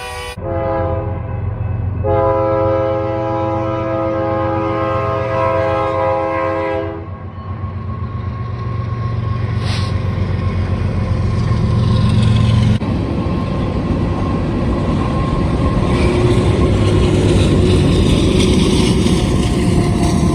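Diesel locomotive horn: a short toot, then a long blast lasting about five seconds. After it comes the rumble of the train going by, its engine and wheels on the rails growing louder toward the end.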